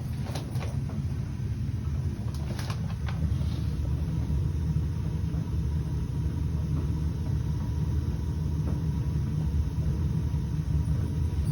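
Weil-McClain residential gas boiler firing with its burners lit: a steady low rumble, with a few light knocks in the first three seconds.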